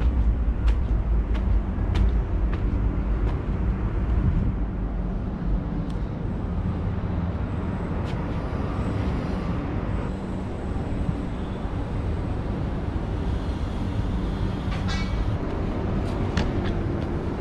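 Footsteps climbing stairs, a bit more than one step a second, over a steady low outdoor rumble that carries on after the steps die away.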